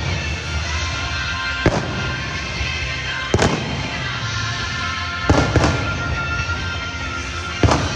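Fireworks bursting overhead, five sharp bangs a second or two apart, with music playing alongside.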